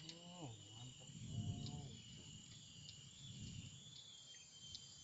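Steady, high-pitched chirring of an insect chorus, with a few short low voices over it.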